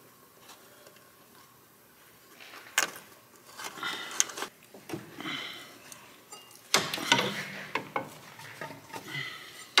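Hands fitting the ABS sensor wire into its plastic holders on the strut: after a quiet start, a sharp click about three seconds in, then rubbing and scraping with light clinks and knocks that get busier in the second half.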